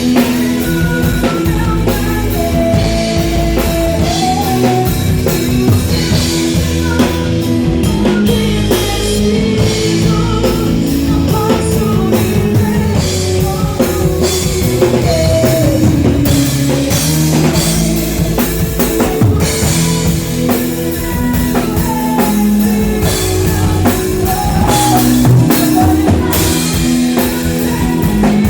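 Live gospel rock band playing, with a drum kit, electric guitar and bass under a melodic lead line.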